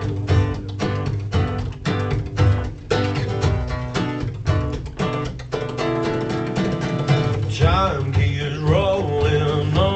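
Live acoustic guitar strumming a rhythmic intro with a hand-held frame drum keeping the beat; a male voice starts singing about seven and a half seconds in.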